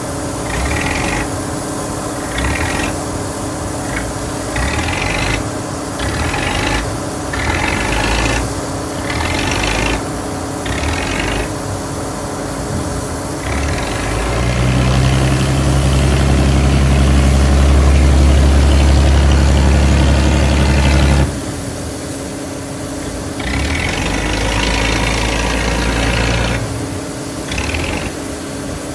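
Boat engine running steadily, joined about halfway through by a louder deep rumble that holds for several seconds and then cuts off sharply.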